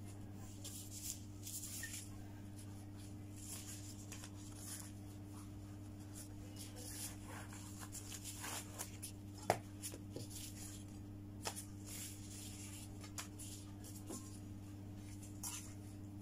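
Soft papery rustling of thin lumpia wrappers being peeled apart and rolled by gloved hands, with a few sharp clicks, the loudest about nine and a half seconds in. A steady low hum runs underneath.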